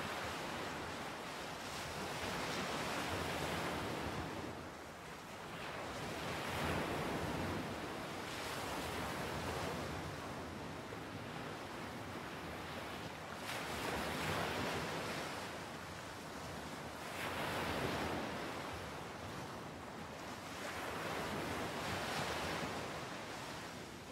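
Ocean surf breaking on a sandy beach, a rush of noise that swells and fades with each wave every few seconds.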